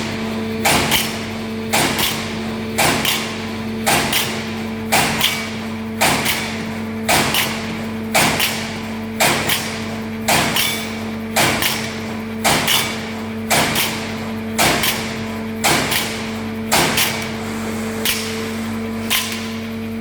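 Finn-Power TRS6 CNC turret punch press punching sheet metal: a steady series of sharp strikes, roughly one a second and often in close pairs, over a steady machine hum.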